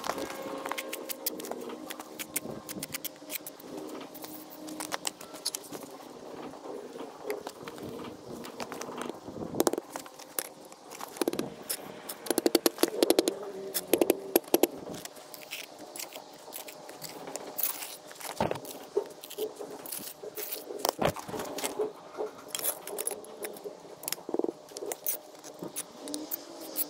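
Trowel scraping and clinking on mortar and stone, with a run of sharp knocks about twelve to fifteen seconds in as a coping stone is knocked down into its mortar bed, a fist thumping on a spirit level laid across it.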